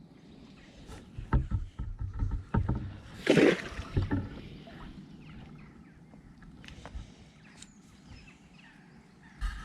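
Irregular splashes and knocks of water, the loudest about three and a half seconds in, then fading to quieter water sounds.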